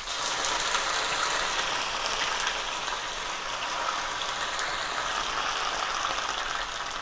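Sliced okra sizzling steadily in hot oil in a frying pan, with small crackles, as pieces are added and stirred with a wooden spoon.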